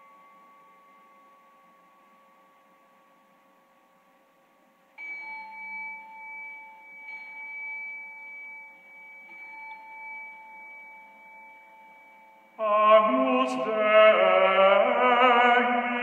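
A bell's ringing tone fades away, then a second bell is struck about five seconds in and rings on, swelling and fading slightly. About three seconds before the end, singing voices come in loudly.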